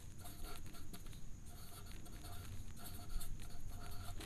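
Pen scratching on paper as a word is handwritten, in a run of short, faint strokes.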